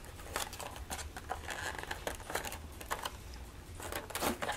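Clear plastic clamshell package being handled and worked open by hand, with scattered crinkles and clicks.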